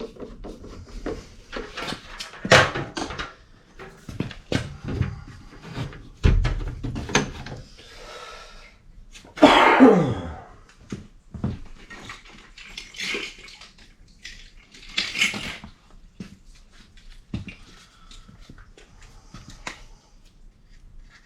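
Hand work on furnace venting and drain fittings: irregular knocks, clicks and scrapes of tools and plastic pipe parts being handled and tightened, with a louder rasping noise about ten seconds in.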